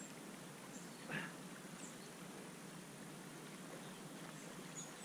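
Quiet seaside ambience: a steady low hiss with a few faint, short high chirps, and one brief soft sound about a second in.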